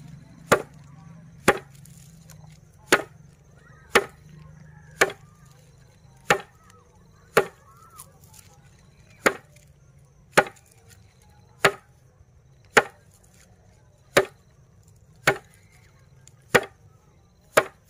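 A bundle of dried grass stalks slapped down hard onto a wooden board again and again, in a steady rhythm of about one stroke a second.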